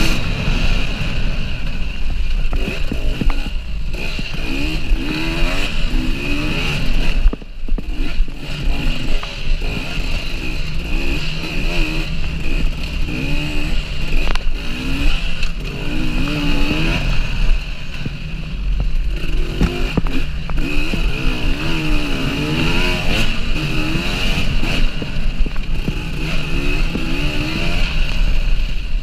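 KTM EXC 300 two-stroke single-cylinder enduro engine under hard riding, revving up and down over and over as the throttle is worked through the trail, with a brief drop in level about seven seconds in.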